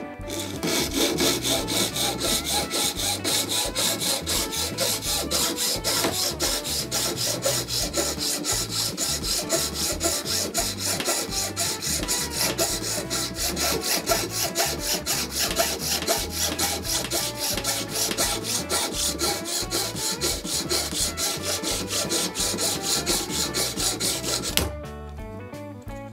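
Hacksaw cutting through a thin wooden board in rapid, even back-and-forth strokes, stopping abruptly near the end.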